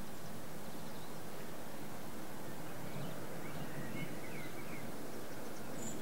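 Steady outdoor background noise with a few faint bird chirps about three to four seconds in and one short high note near the end.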